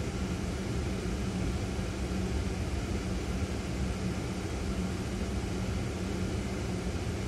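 Ford Fiesta's engine idling at a standstill, heard from inside the car: a steady hum with one constant low tone over a low rumble.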